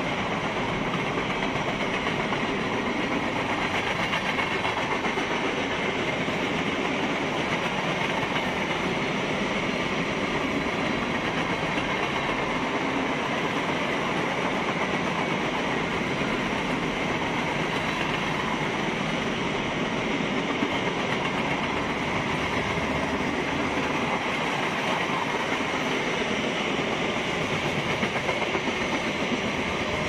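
Freight train cars (boxcars and covered hoppers) rolling past at speed: a steady noise of steel wheels running on the rails.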